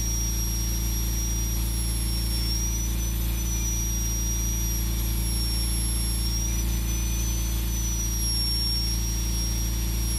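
High-speed power carver, a handpiece spinning at around 250,000 rpm, cutting outlines into wood with a thin high-pitched whine that sags slightly in pitch a few times, over a steady low hum.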